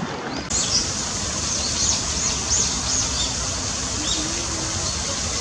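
Eurasian tree sparrows chirping, many short high chirps in quick succession, thinning out after about three seconds, over the steady rush of a waterfall.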